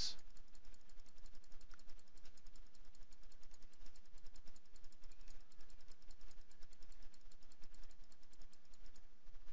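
Computer keyboard arrow key tapped over and over, a quick, even run of clicks that stops near the end.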